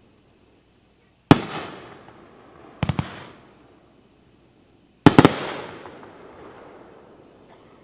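Aerial shells from a 9-shot consumer fireworks cake ('Lucky One') bursting: a single sharp report about a second in, a quick double about a second and a half later, then a quick triple past the middle, each trailing off in a rumbling echo.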